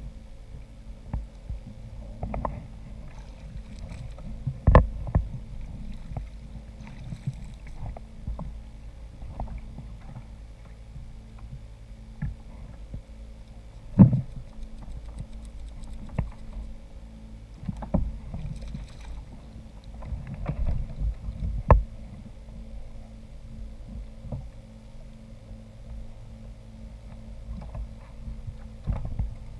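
Irregular knocks and bumps on a fishing kayak, several sharp ones standing out, over a steady low hum.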